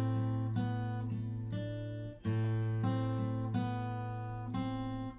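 Acoustic guitar strummed in chords, a strum about every half second over a low ringing bass note, with a brief break about two seconds in before the strumming picks up again.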